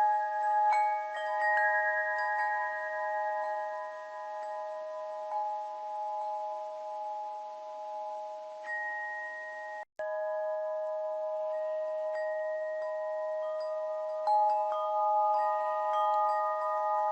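Bell chimes struck at irregular moments, each note ringing on so that several pitches sustain and overlap. The sound breaks off for a split second about ten seconds in, then resumes.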